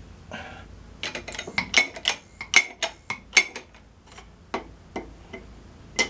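A threaded steel rod clinking against the steel blocks it rests on as it is turned by hand on a press: an irregular run of sharp metallic clicks, some ringing briefly, thinning out after about four seconds.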